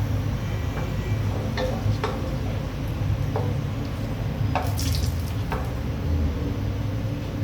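Water running from a kitchen tap, with several short knocks and clinks of utensils.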